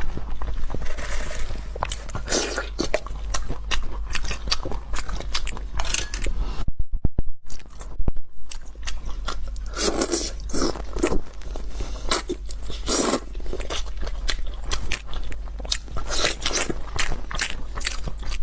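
Close-up crunching, biting and chewing of food, a dense run of irregular crackly crunches, with a short break about seven seconds in.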